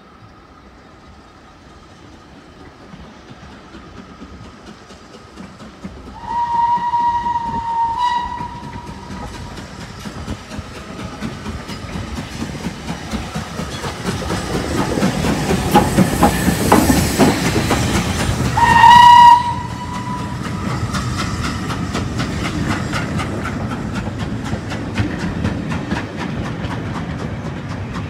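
LNER B1 steam locomotive 61306 approaching and passing at speed, sounding its steam whistle twice: a blast of about two seconds some six seconds in, and a short, very loud one at around nineteen seconds as it goes by. The noise of the engine builds to a loud rush as it passes, then the coaches follow with a steady rhythmic clatter of wheels over the rail joints.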